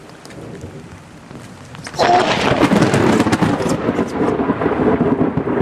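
Rain falling, then about two seconds in a sudden, very loud thunderclap from a lightning strike close by, going on into a long crackling rumble.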